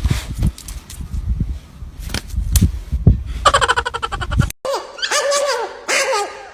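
Low wind rumble and handling knocks on a phone microphone, with a brief rapid pulsing sound about three and a half seconds in. After a cut, a puppy whining in short high cries, each sliding down in pitch, three in quick succession.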